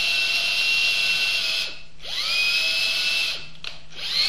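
Electric drill boring into a wooden board, the motor whining in two long bursts: it speeds up with a rising whine, runs steadily, winds down and stops about a second and a half in, then runs again for about a second and a half before stopping.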